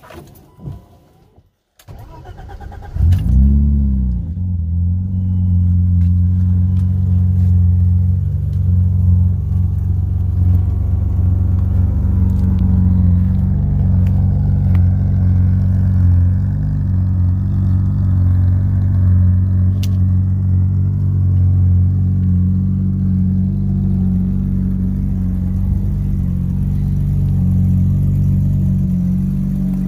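1990 BMW 325i's inline-six cold-started: the starter cranks briefly, the engine catches about three seconds in with a short flare of revs, then settles into a steady idle.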